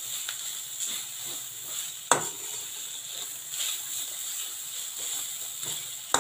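Shredded chicken and onion masala sizzling in oil in an aluminium wok as a spatula stirs and scrapes through it, with a sharp knock of the spatula against the pan about two seconds in and another near the end.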